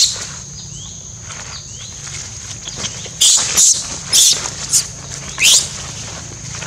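Baby macaque screeching in several short, shrill cries, bunched between about three and six seconds in, with a few faint squeaks before them.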